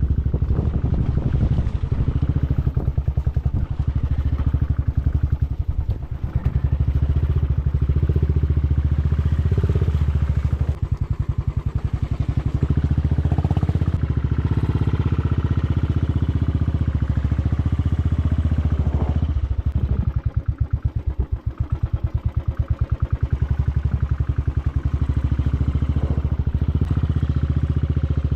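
Motorcycle engine running steadily while riding on a rough road, its firing pulses continuous and dipping a little in loudness past the middle.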